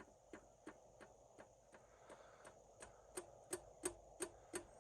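Faint, regular tapping of a homemade paint dabber dabbed up and down onto the socket set's case, about three taps a second, growing louder near the end.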